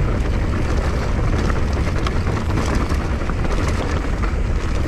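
Mountain bike rolling fast over a loose, rocky dirt track: tyre noise on gravel with scattered rattling clicks from the bike, under a steady low rumble of wind buffeting the camera's microphone.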